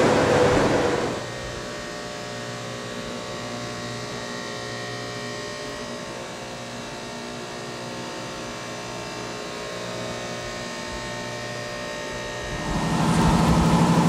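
Steady machinery hum in a diesel power plant's engine hall, with several steady tones. A louder rush of noise cuts off suddenly about a second in, and a louder, deeper machine noise comes in near the end.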